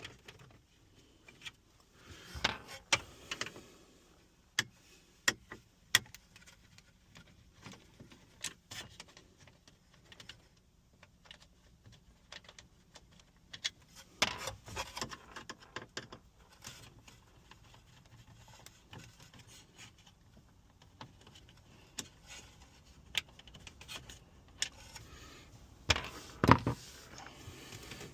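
Scattered clicks, rattles and knocks of hands working loose a car's dashboard radio and its plastic trim and screws, with quiet stretches between. A louder knock comes about 26 seconds in.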